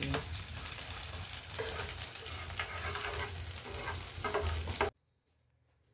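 Egg-battered pollack fillets sizzling in oil on an electric griddle: a steady frying hiss dotted with small pops and crackles, which cuts off suddenly about five seconds in.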